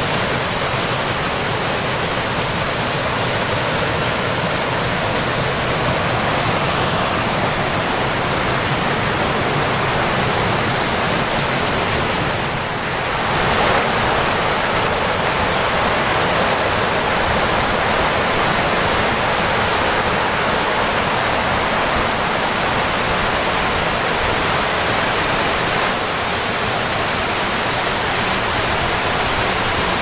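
Waterfall and the rocky stream below it rushing steadily: an even, unbroken noise of falling and tumbling water, with a brief dip and swell about a third of the way through.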